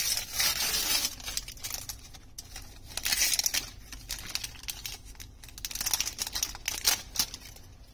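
Foil wrapper around a stack of trading cards being torn and peeled open by hand, crinkling in several loud bursts that die away near the end.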